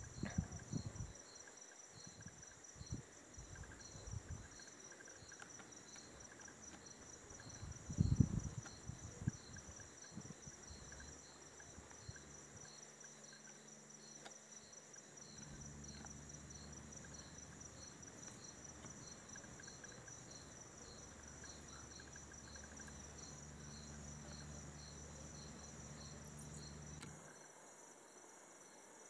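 Crickets calling: a steady high trill with a second, pulsed chirp repeating a little over twice a second. A few low thumps come about eight seconds in, and a low hum runs through the middle and stops near the end.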